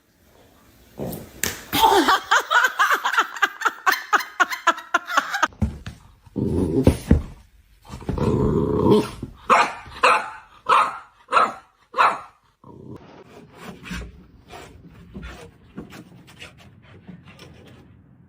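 A dog vocalizing: a long pulsing run of calls, then a string of short barks about half a second apart.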